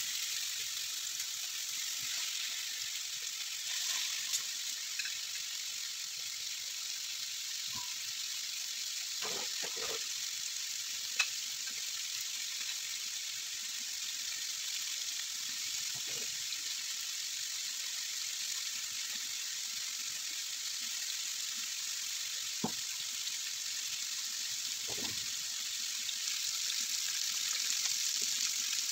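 Seasoned chicken pieces frying in oil in a nonstick pan: a steady sizzling hiss, with a few brief sharp clicks.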